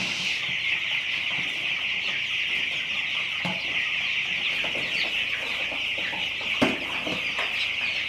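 A large flock of young broiler chicks peeping together in a dense, steady chorus. A few short knocks sound over it, the loudest about two-thirds of the way through.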